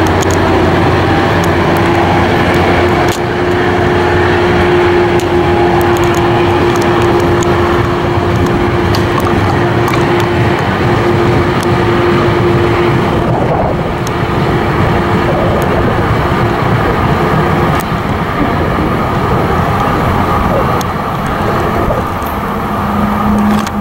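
Tri-Rail commuter train of bi-level coaches moving along the station track: a loud, steady rumble with a steady hum that stops about halfway through. A lower hum comes in near the end.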